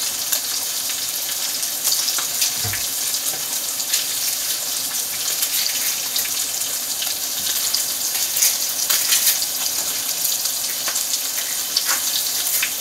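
Ribeye steak frying in a pan: a steady sizzle with scattered small crackles.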